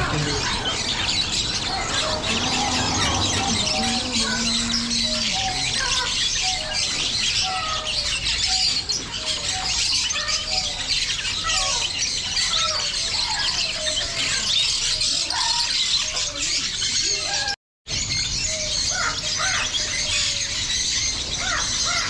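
Many small caged birds, canaries and finches, chirping and twittering all at once in a dense, continuous chorus. The sound cuts out for a moment about three-quarters of the way through, then the chirping goes on.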